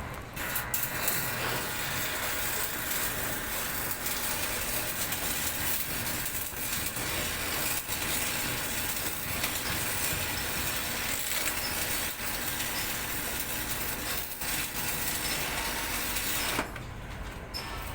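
Welding arc crackling and sizzling steadily as a bead is laid. It starts abruptly just after the start and cuts off about a second before the end.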